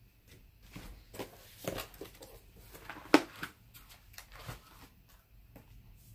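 Someone moving about and rummaging off-camera: scattered soft knocks and rustles, with one sharper knock about three seconds in.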